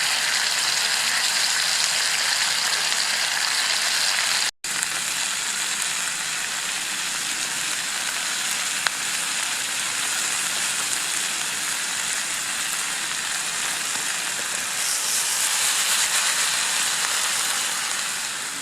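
Pork steaks sizzling in a frying pan, a steady frying hiss. It cuts out for an instant about four and a half seconds in and grows a little louder near the end.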